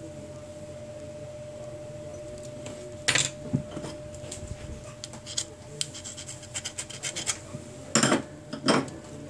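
A hand tool scraping and tapping on a smartphone circuit board in irregular short scratchy strokes, starting about three seconds in and loudest near the end, over a steady faint hum.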